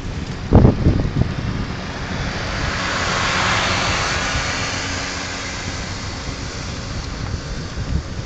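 Wind buffeting a phone's microphone while cycling: a steady low rumble with a heavy thump about half a second in, and a rushing hiss that swells and fades in the middle.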